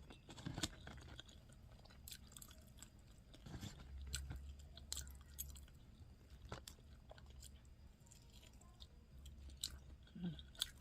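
Close-up chewing of a mouthful of spicy fried instant noodles, with faint wet mouth clicks and smacks scattered through.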